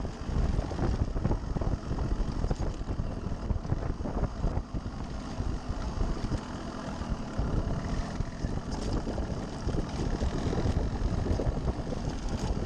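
Yamaha RX135's single-cylinder two-stroke engine running as the motorcycle rides over rough dirt ground, with scattered knocks and rattles from the bumps.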